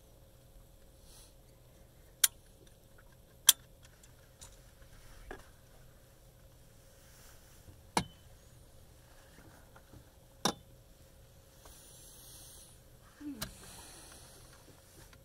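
Four sharp clicks or knocks, several seconds apart, over a faint steady background, with a short stretch of soft rustling near the end.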